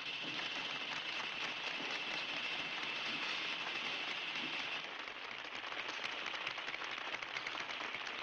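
A dense, steady crackling patter from the cartoon soundtrack, with a high hiss over it that drops away about five seconds in, after which it turns into many sharp clicks.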